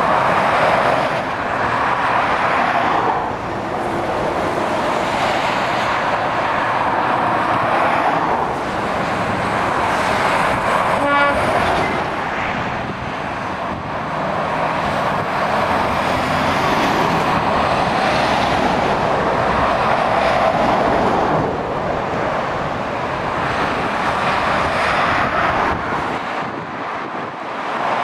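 Motorway traffic: a continuous roar of tyres and heavy-lorry engines that swells as each truck passes close and eases between them, with one short horn-like tone about eleven seconds in.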